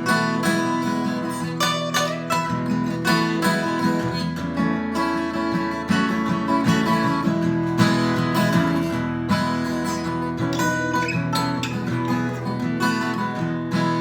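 Solo acoustic guitar playing an instrumental break between verses, a steady run of quickly picked notes.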